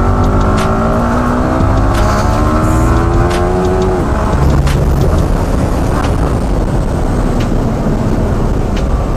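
Yamaha R15M's 155 cc single-cylinder engine accelerating hard, its pitch rising steadily through a gear and breaking off about four seconds in. After that, wind rushing over the microphone at speed covers most of the engine.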